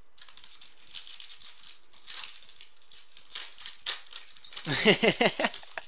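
Foil wrapper of a trading card pack crinkling and rustling as it is handled and opened. A man's voice comes in near the end.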